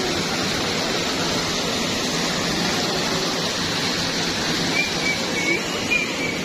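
Water from a small plaza fountain spilling over a stone ledge into its basin: a steady, even rushing splash.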